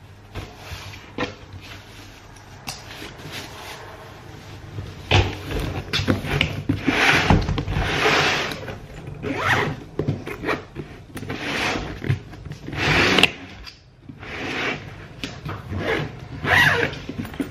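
Zip on a hard-shell suitcase stuffed full of clothes being worked closed: a series of short noisy zipping strokes with knocks and rustling as the lid is pressed down.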